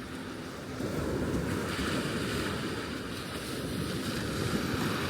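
Sea waves washing onto a beach, with wind rumbling on the microphone; the surf gets louder just under a second in.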